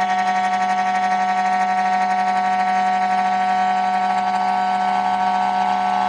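Spindle of a CNC lock-hole milling machine for aluminium door profiles running at speed: a steady high-pitched whine.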